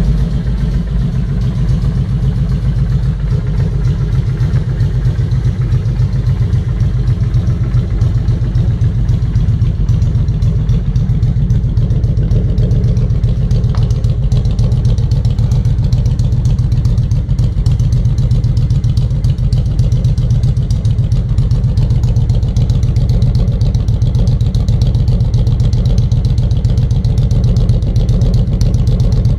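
Carbureted Honda Shadow 750 V-twin idling steadily through an aftermarket Customer sport exhaust, a loud, even low exhaust beat with no revving.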